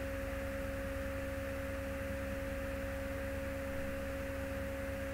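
Steady electrical hum with a constant whine above it, unchanging throughout.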